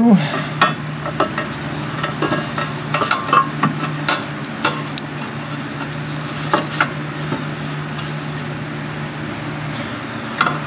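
Scattered small clicks, scrapes and rustles of hands working a rubber breather hose into place on a small engine, over a steady low hum.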